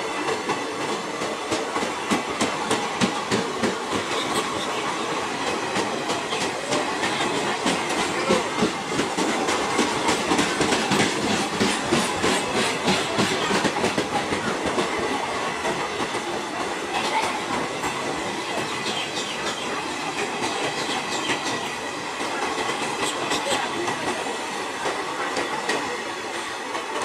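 Indian Railways passenger coaches of the Kanchanjunga Express rolling past, their wheels clattering over the rail joints in a continuous clickety-clack. The sound eases off slightly near the end as the last coaches go by.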